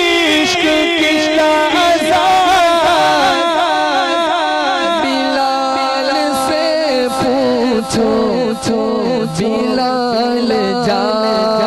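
A man singing a naat, an Urdu devotional song, into a microphone in long ornamented phrases whose pitch slides and turns.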